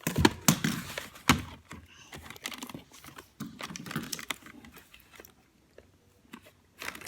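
Handling of cardboard and tape while making a box Nerf gun: a cluster of sharp clicks and knocks in the first second and a half, then crinkling and rustling, with a quiet spell near the end.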